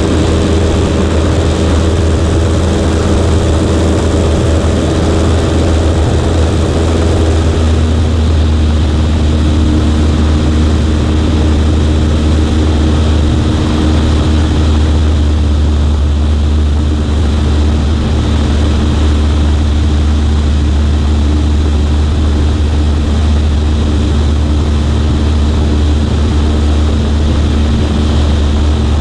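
Cessna 140A's single piston engine and propeller running steadily. The engine note drops a little about seven seconds in, then holds.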